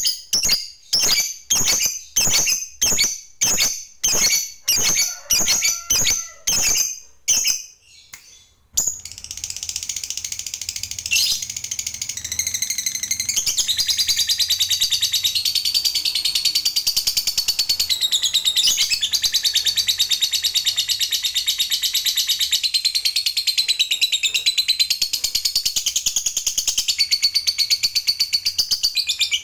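Masked lovebird calling: sharp high chirps about two a second for the first eight seconds, then, after a brief pause, one long unbroken rapid chattering trill, the long 'ngekek' song that keepers prize.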